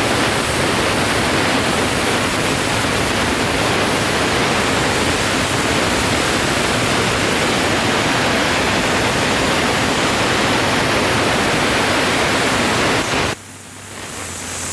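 CNC cutting torch hissing steadily as it cuts. The hiss cuts off suddenly about 13 seconds in, leaving a quieter machine hum.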